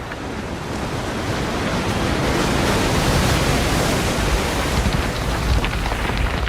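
Avalanche sound effect: a dense rushing roar of sliding snow over a deep rumble. It swells over the first two or three seconds and then holds loud.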